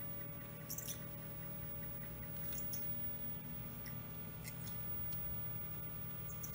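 EVR Teleplayer running in playback, almost whisper quiet: a faint steady hum with a few light ticks.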